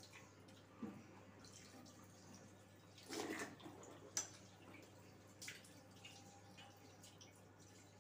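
Faint splashing and dripping of water in a bathroom wash basin as cupped hands scoop water up to the face, a few separate splashes with the clearest about three seconds in.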